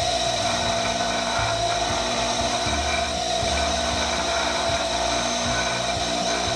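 Bench grinder running with an abrasive dressing stick held against the face of the spinning grinding wheel: a steady grinding hiss over the motor's hum and a constant whine. The wheel is being dressed and trued, wearing down a worn-deep spot and exposing sharp grains.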